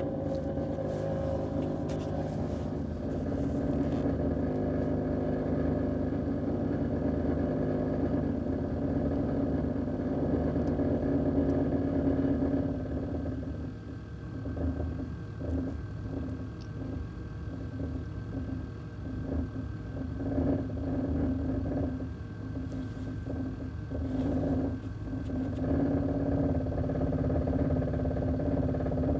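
2001 Chevrolet Silverado 1500 pickup running, recorded to capture a rattling noise of unknown cause. The sound is steady at first, turns choppy and uneven from about halfway through for some ten seconds, then steadies again.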